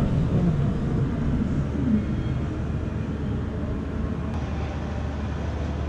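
Steady low hum and background noise of a large praying congregation in a mosque hall during a silent pause, with the worshippers in prostration and no recitation.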